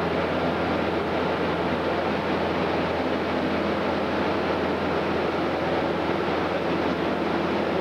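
Steady, unchanging din in a crowded hall, with a constant low hum underneath and no distinct events.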